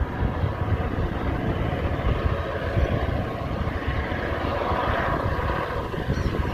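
Train passing with its diesel locomotive running: a steady drone over a low, uneven rumble, brightening briefly around five seconds in.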